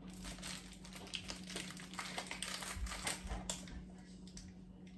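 Plastic spice-mix packet crinkling in the hands as it is opened: a quick irregular run of small crackles, busiest in the middle, over a steady low hum.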